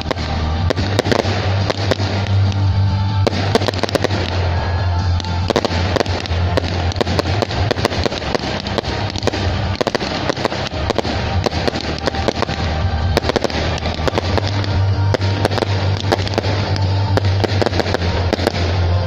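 A fireworks display: many bangs in quick succession from rising comets and aerial bursts, over music.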